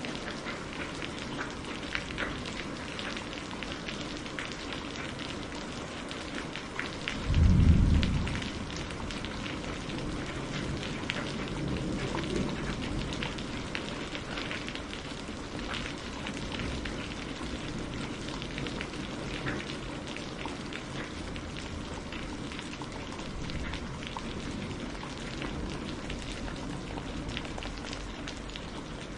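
Steady rain with many fine patters of drops. About seven seconds in a short, deep thunder clap rumbles for about a second, the loudest sound, then the rain goes on.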